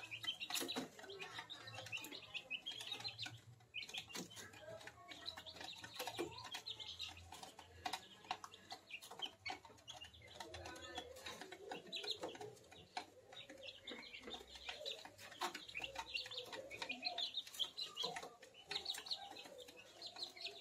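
A brood of month-old kampung (Indonesian native) chicken chicks peeping and chirping continuously, with some lower clucking calls and scattered sharp clicks.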